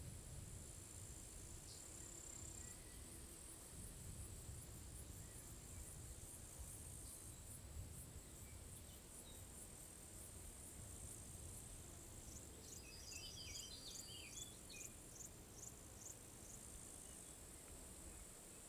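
Faint, steady high-pitched insect trilling over a low rumble, with a short run of quick chirps about twelve seconds in.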